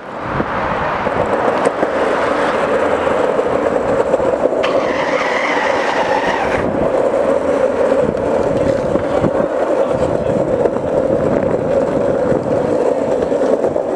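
Skateboard wheels rolling steadily over pavement, a continuous rough rumble, with a brief higher hiss added from about five to seven seconds in.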